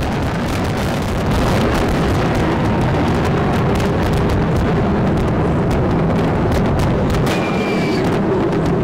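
Large fireworks display: a dense, continuous barrage of bursts and booms, one close on another.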